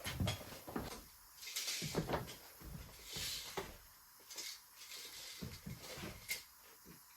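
Light knocks and scuffs of wooden boards and tools being handled, with a few brief hissing noises in between and one sharper knock about six seconds in.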